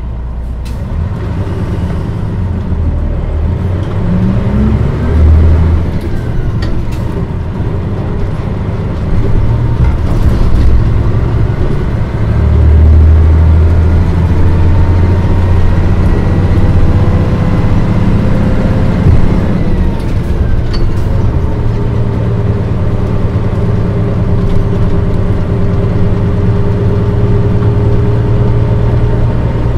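Cabin sound of a 2002 Mitsubishi Fuso Aero Star KL-MP35JM manual-transmission diesel city bus on the move. The engine runs throughout and swells louder twice as the bus accelerates, with a faint whine that rises slowly in pitch and then drops away.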